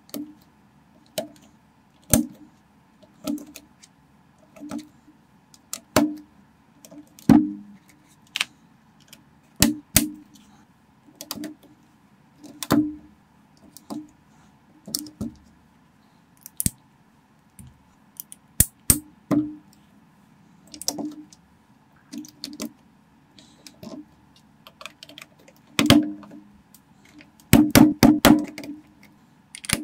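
Plastic building bricks clicking and snapping into place as pieces are pressed onto a brick-built model car: sharp, irregular clicks about once a second, with a quick run of several clicks near the end.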